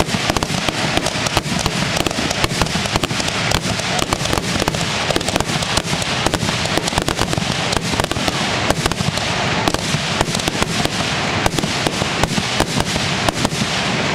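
Fireworks finale barrage: aerial shells launching and bursting in a dense, unbroken run of rapid bangs.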